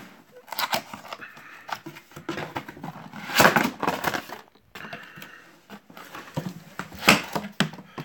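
Cardboard box being handled and shifted on a stand: irregular scuffs, rustles and knocks, loudest about three and a half seconds in and again near the end.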